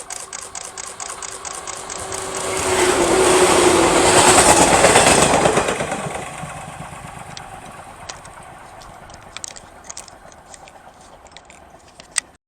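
A train passing close by a level crossing. The crossing bell rings rapidly at first, then the train's rush swells to its loudest about four to five seconds in and fades away, with a few scattered clicks near the end.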